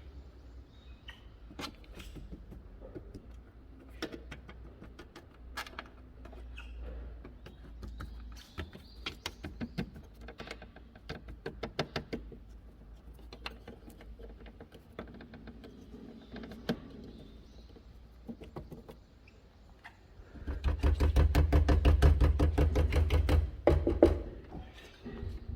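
Irregular light clicks and knocks, then a loud rapid rattle lasting about three seconds near the end.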